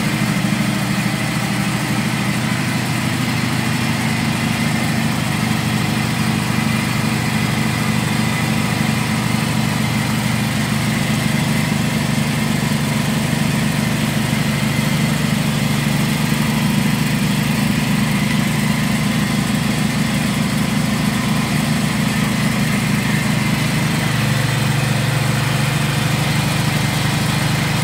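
Small single-cylinder stationary diesel engine running steadily, driving a grinding mill as peanuts, chillies and garlic are fed into its hopper. The low running note shifts slightly near the end.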